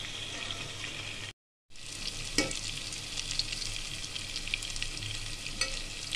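Chicken pieces frying in oil in an aluminium pot over low heat: a steady sizzle with small crackles, while a metal spatula turns the pieces and knocks sharply against the pot about two and a half seconds in. The sound cuts out completely for a moment just over a second in.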